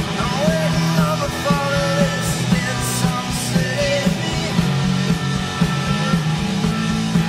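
A rock band playing live, with electric guitar, bass and a steady drum beat, and a male voice singing over it in the first half.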